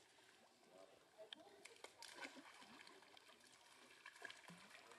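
Near silence: faint outdoor background with scattered small clicks and faint distant voices.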